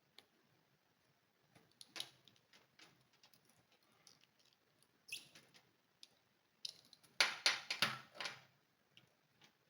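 Scattered small clicks and taps of handwork on a plastic eyeglass frame and small tools, with a denser run of louder clicks about seven seconds in.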